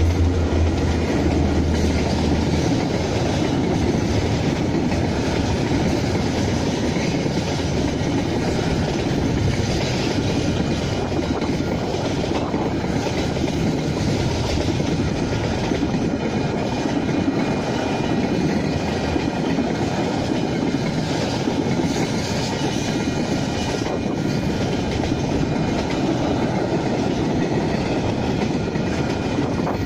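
Container freight train passing close by: a diesel locomotive's low engine drone for the first couple of seconds, then the steady noise of the container wagons' wheels running on the rails as the wagons roll past.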